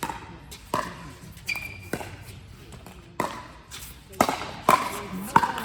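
Pickleball rally: paddles striking a plastic pickleball, about eight sharp pops at irregular intervals. The hits come faster and louder near the end.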